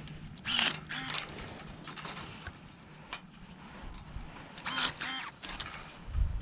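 Pruning shears cutting grapevine canes: several short mechanical snips, a few seconds apart.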